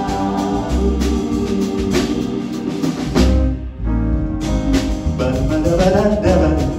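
Live vocal ensemble singing with a band of piano, upright bass, electric guitar and drum kit, the drums prominent. About halfway through, the drums and high end drop out for about a second, leaving a held chord, before the full band comes back in.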